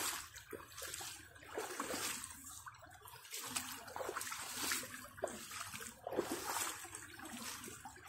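Creek water running over a rock ledge, flowing higher than usual, with irregular splashes that swell and fade about once a second.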